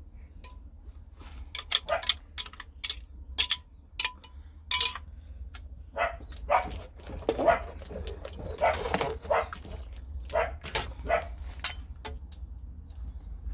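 Sharp clicks and knocks, then a dog barking in a series of short barks.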